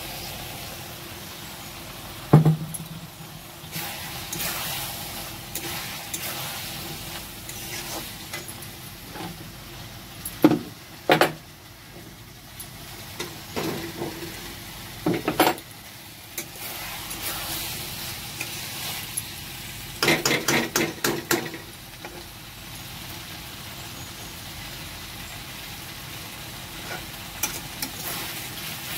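Vegetables frying in curry masala in a kadai, with a steady sizzle while a metal spatula stirs and scrapes them. There are sharp knocks of the spatula against the pan now and then, and a quick run of taps about 20 seconds in.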